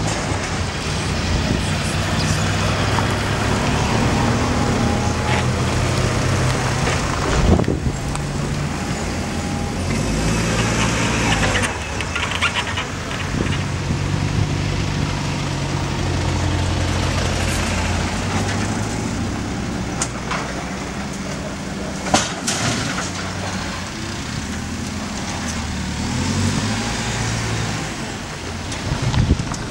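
Heavy diesel machinery running steadily at road works, a backhoe loader and a dump truck. A couple of sharp knocks stand out, one about seven seconds in and one about twenty-two seconds in.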